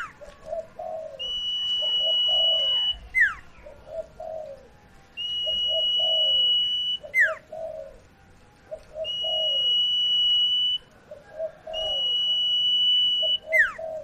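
Sirtu songbird singing a repeated phrase: a long, steady high whistle held for about two seconds, then a quick downward-swooping note, with short lower notes in between. The phrase comes round four times.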